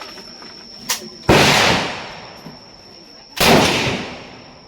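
Two single AK-47 rifle shots about two seconds apart, each ringing and echoing away over about a second. A smaller sharp click comes just before the first.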